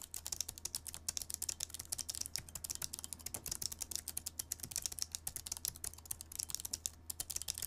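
Fast typing on the Razer Blade Pro's ultra-low-profile mechanical keyboard: a dense, unbroken stream of stiff key clicks with a crispy, sizzling sound.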